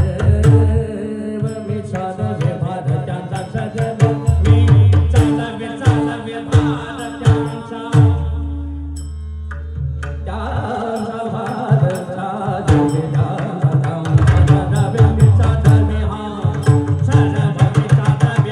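Abhang devotional singing accompanied by pakhawaj drumming, with dense drum strokes over steady held tones. About eight seconds in, the drumming stops for a couple of seconds while a low tone is held, then resumes.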